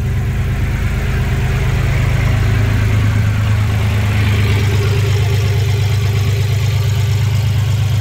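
Boat's inboard engine idling steadily, a loud low hum.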